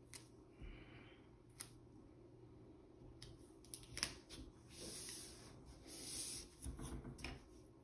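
Faint rubbing and a few soft clicks of masking tape being pressed and smoothed down by hand along the edge of an illustration board, with a sharper tap about four seconds in.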